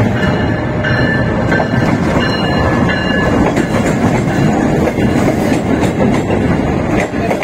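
Passenger train arriving at a platform: a GEU-40 diesel-electric locomotive passes close by with its engine running, then the coaches roll past with their wheels clattering over the rails. Loud and steady throughout.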